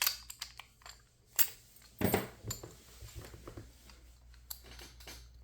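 Lock pick and tension wrench working in a PacLock 410 Pro padlock: scattered small metallic clicks and taps at an uneven pace, the loudest a little after one and two seconds in, fainter ticks near the end.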